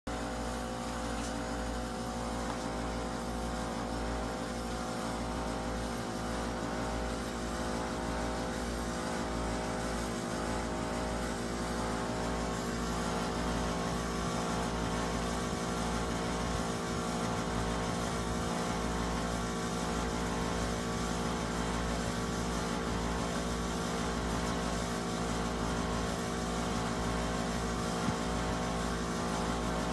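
Carrier 5,000 BTU window air conditioner running: a steady motor hum with several held tones over the even rush of air from its fan.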